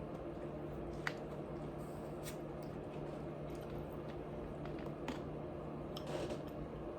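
Close-up wet chewing and mouth sounds of someone eating food, a few soft smacking clicks spread through, over a steady low background hum.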